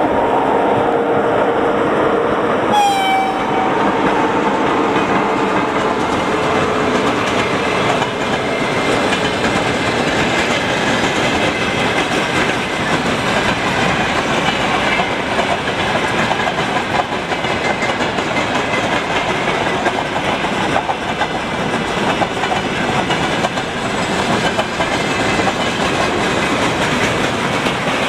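Long freight train behind a 2ES6 Sinara electric locomotive rolling past, its wagons' wheels rumbling and clattering over the rail joints. The locomotive's whine dips slightly and fades over the first few seconds, and a brief sharp tone sounds about three seconds in.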